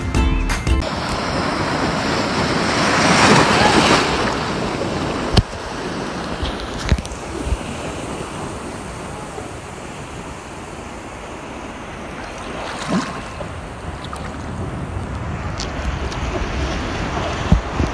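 Sea water sloshing and small waves washing around a camera held just above the surface, with wind on the microphone. The water swells louder about three to four seconds in, and a few sharp knocks cut through. Background music stops under a second in.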